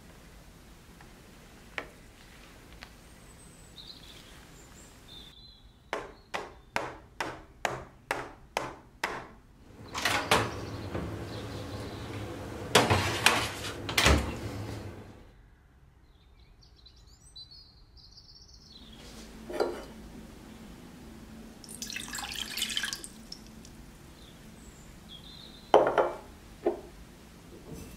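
Kitchen handling sounds: a run of about eight sharp clicks, about two a second. Then a few seconds of rushing noise ending in a knock as a built-in oven door is shut. Later, water is poured briefly into a stainless steel saucepan, followed by a couple of knocks.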